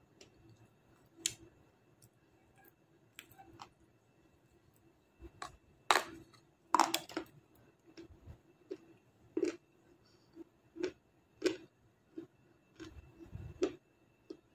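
Close-miked chewing of a brittle white chunk: crisp crunches and clicks as it is bitten and ground between the teeth, a few every second, loudest about six and seven seconds in.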